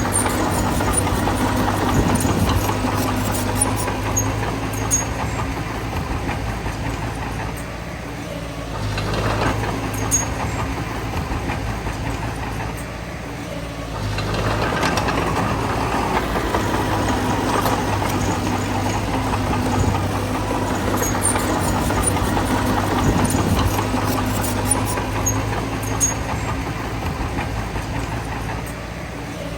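Bulldozer's diesel engine running under load, easing off twice and building up again, with a few sharp knocks.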